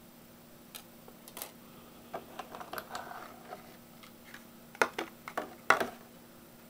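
Toy packaging being handled: scattered light clicks and a short crinkle, with two sharper snaps near the end.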